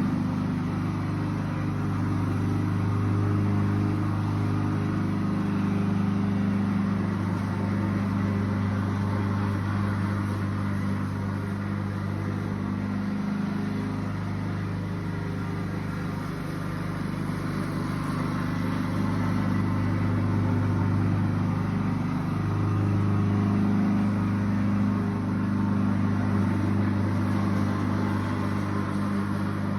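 Lawnmower engine running steadily, a low droning hum that grows slightly louder and softer by turns.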